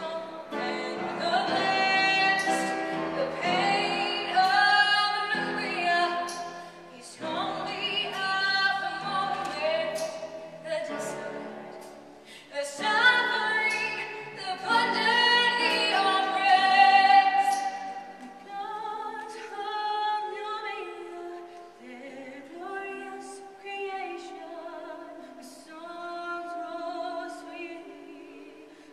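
A female lead singing a stage-musical song with long held notes, strong and full through the first half, then softer from about eighteen seconds in.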